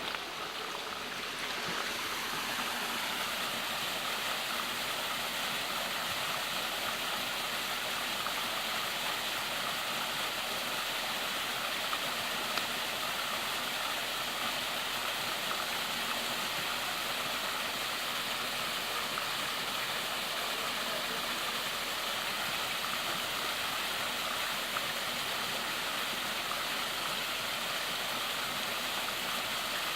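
Waterfall on Big Creek, a steady, even rush of falling water.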